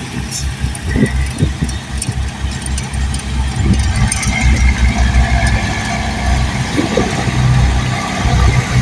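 Bulldozer's diesel engine running under varying load, its low sound pulsing and swelling. A steady high whine comes in about four seconds in.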